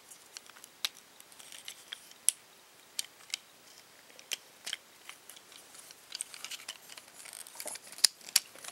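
Small plastic Transformers Mechtech Bumblebee figure being handled: its parts and joints give sharp, irregular clicks and snaps as they are moved, more often in the last few seconds.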